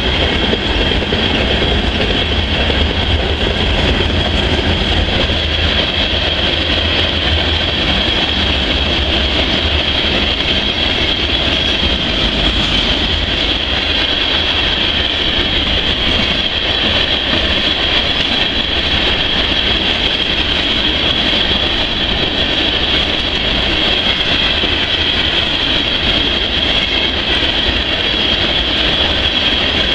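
Freight train of steel hopper cars rolling past close by: steady rumble and clatter of wheels on rail, with a steady high-pitched whine above it.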